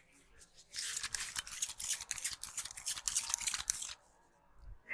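Fast, crisp rubbing and scratching of hands through hair and scalp during a head massage. It runs for about three seconds as a dense run of quick strokes, then stops.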